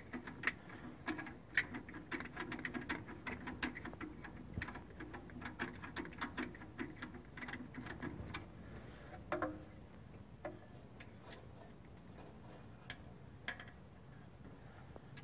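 Light metallic ticks and clicks as the loosened nuts and bolt are worked off a tractor starter's terminal stud and mounting point, a quick irregular run that thins out after about nine seconds.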